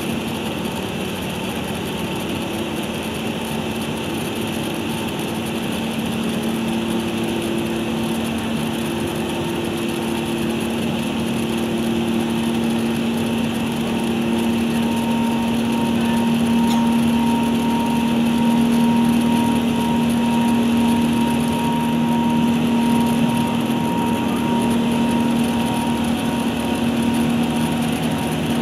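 Airbus A380 cabin noise during the climb after takeoff: a steady drone of the jet engines and rushing air, with a constant low hum that grows slightly louder about halfway through.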